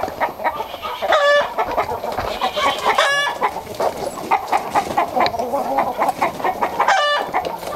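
A flock of free-range chickens clucking busily and continuously, with three short, louder calls cutting through: about a second in, about three seconds in, and near the end.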